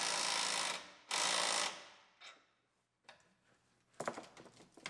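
Cordless electric ratchet spinning the nut down on top of a truck's front shock absorber, drawing the shock up into its mount. It stops about a second in and gives one more short burst. A quick cluster of clicks and knocks follows near the end.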